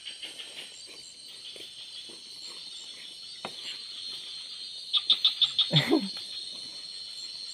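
Night forest insect chorus: a steady, high-pitched, many-layered drone. About five seconds in, a quick run of about eight sharp chirps lasts roughly a second and ends in a short, low sound that bends in pitch.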